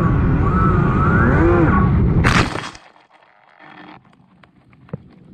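Electric motor and propeller of a small FPV foam plane whining, the pitch rising and falling with the throttle. About two seconds in it ends with a sharp crash as the plane hits the grass, and the motor stops. After that only a few faint clicks and rustles remain.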